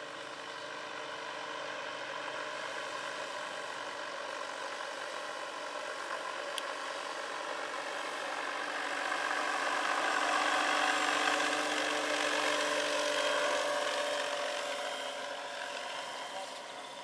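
Large electric RC scale helicopter (AS-350 Ecureuil model with a 2.5 m rotor) in flight: its electric drive and rotors make a steady hum of several pitches. The hum swells louder past the middle as the model comes closer, then fades toward the end.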